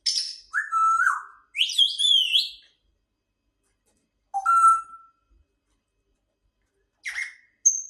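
Grey parrot whistling and calling: a harsh squawk, then a run of gliding, warbling whistles, a single short call about halfway through, and a short squawk followed by a brief high whistle near the end.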